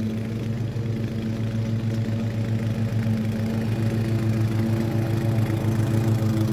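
Toro TimeMaster petrol walk-behind mower running at a steady engine speed while cutting grass, getting slightly louder as it comes closer.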